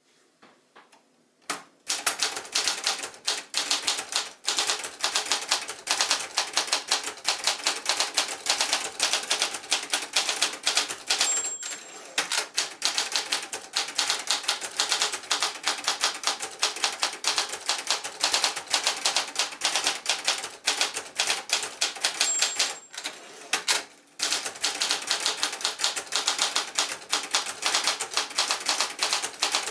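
Brother Accord 10 manual portable typewriter being typed on: fast, steady keystroke clacks starting about a second and a half in. Twice a brief high ding sounds, each followed by a short break in the typing.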